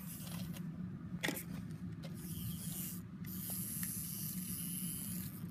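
Clockwork spring motor of a wind-up Ms. Pac-Man toy whirring steadily as the toy walks, with a few light clicks.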